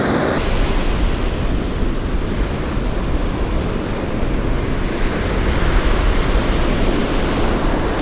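Ocean surf breaking and washing up the beach, a steady rushing noise. From about half a second in, wind buffets the microphone with a heavy low rumble.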